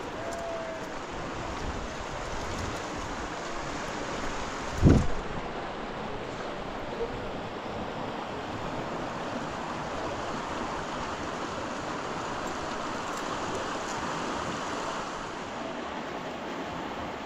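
Steady rush of wind and water at a lakeshore, with one loud low thump about five seconds in.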